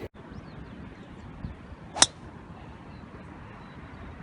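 A golf club strikes a ball: one sharp crack about two seconds in, over a faint steady outdoor background.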